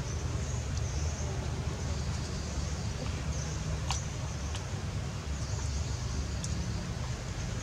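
Outdoor background noise: a steady low rumble with a faint, on-and-off high hiss, and a few sharp clicks about four and six and a half seconds in.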